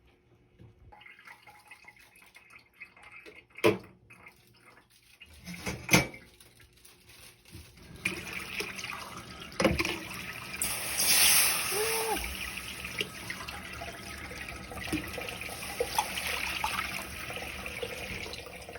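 Water running steadily, starting about eight seconds in and loudest a few seconds later, after two sharp knocks.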